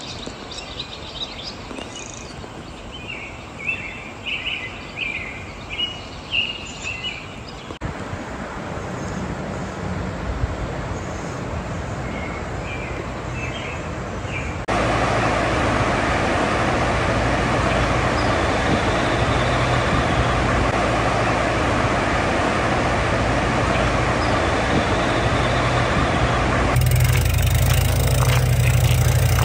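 Songbirds chirping over outdoor ambience for the first several seconds. Then a steady rushing noise takes over and jumps louder about halfway through. Near the end comes a low rumble of bicycle tyres rolling on a gravel road, with wind on the microphone.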